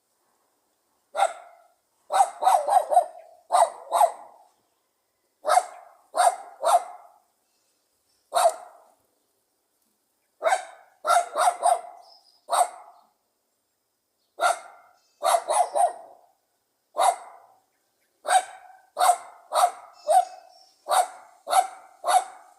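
Pug dog barking: about thirty short, sharp barks, some single and some in quick runs of two to four, with pauses between.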